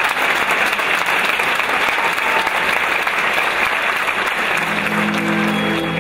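Audience applauding with steady, dense clapping. About five seconds in, the wind band comes in under the applause with a sustained chord.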